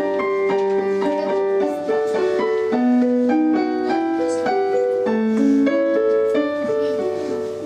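Piano playing a melody, a steady run of single notes over lower held notes: the introduction to a children's song.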